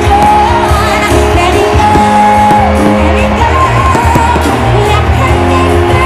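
Loud music with a singing voice over a steady beat.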